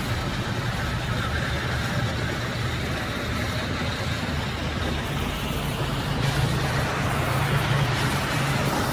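Large sawmill band saw running with a steady hum, its blade sawing lengthwise through a log as it is fed through; slightly louder from about six seconds in.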